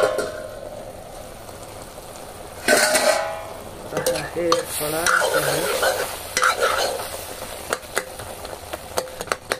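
A steel lid clanks on an iron kadhai about three seconds in. Then a steel ladle stirs and scrapes a steaming, sizzling vegetable curry in the kadhai, and taps against the pan in quick sharp knocks near the end.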